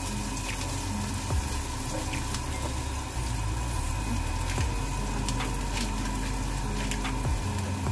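Diced onions sizzling in hot oil in a wok as they are stirred with a plastic spatula, with scattered small crackles over a steady low hum.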